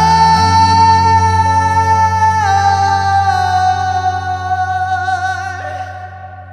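Live art-rock band: the lead singer holds one long sung note on the word 'for' over sustained low chords. The note steps down slightly about two and a half seconds in, wavers in a vibrato toward the end, then fades.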